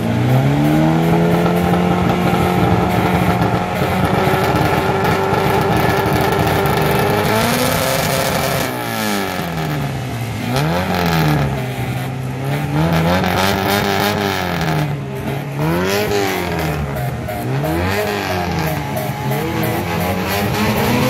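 Mk1 Volkswagen Golf engine revved through its exhaust. It climbs and holds at a steady high rev for about seven seconds, then drops and is blipped up and down repeatedly, about every second and a half.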